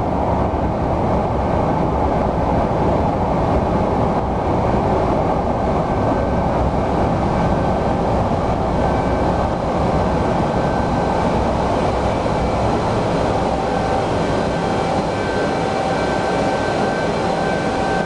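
Burners of a large fire-test furnace firing: a loud, steady, even rushing noise. A faint steady whine joins in about two-thirds of the way through.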